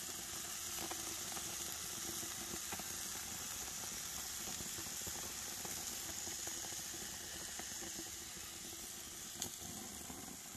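Hamburger patties sizzling on a gas grill over open flame: a steady hiss with scattered crackles and pops, and one sharper pop near the end.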